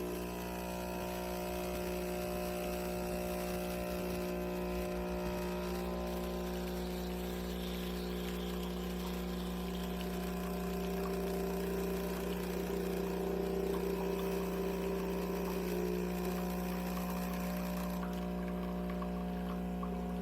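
URintells Cuising 20-bar espresso machine's pump running with a steady hum as it pulls a double shot, with coffee pouring into the cup.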